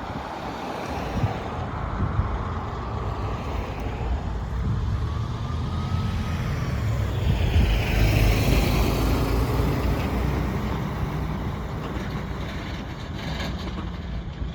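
Amtrak passenger train passing, a steady rumble and rail noise that swells to a peak about eight seconds in and then slowly fades.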